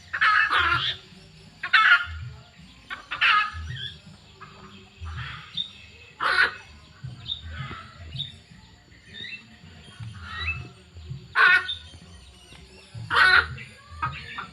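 Birds calling: a series of short, loud, harsh calls, spaced from about one to several seconds apart, over fainter calls.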